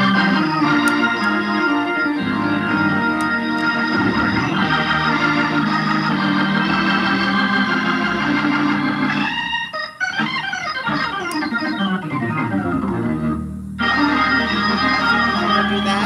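Electric organ playing full sustained chords. About ten seconds in the sound briefly thins, a quick descending run of notes follows, and the full chords come back near the end.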